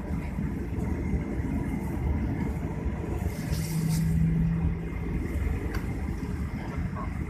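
Steady low engine rumble, with a steady hum and a short hiss about halfway through.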